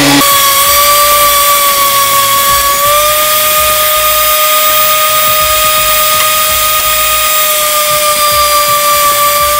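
Benchtop thickness planer running as pine boards feed through, a loud steady motor whine. The pitch jumps higher just after the start and steps up slightly again about three seconds in. Its knives are dull and due for replacement, the owner says.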